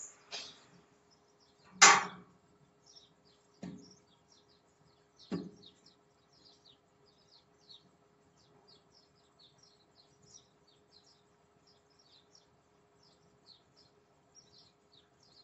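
Boots knocking against the steel lattice of a tower crane mast as a worker climbs: four sharp knocks in the first six seconds, the loudest about two seconds in. Then small birds chirp quickly and continually over a faint steady hum.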